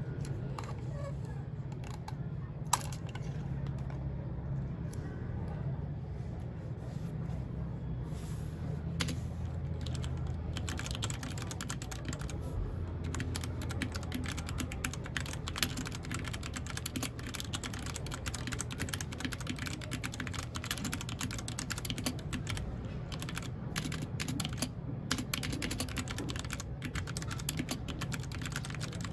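Typing on a mechanical keyboard: a few scattered keystrokes, then steady, fast typing from about ten seconds in, over a low background hum.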